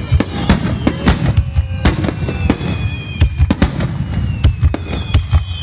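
Star mine fireworks barrage: a rapid string of shell bursts, about three sharp bangs a second, over a continuous low rumble of overlapping explosions.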